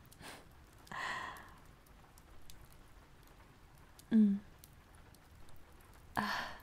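A woman's soft wordless vocal sounds: a breathy sigh about a second in and short hums near four and six seconds in, with faint scattered clicks between them.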